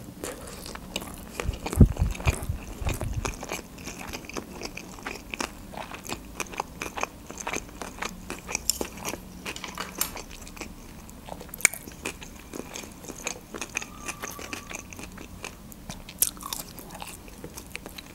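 Close-miked chewing of a sushi roll topped with chuka seaweed salad: mouth sounds with many small clicks, and a few low thumps about two seconds in.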